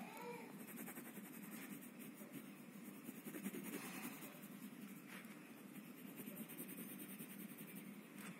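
Faint scratching of a pencil on drawing paper in irregular strokes.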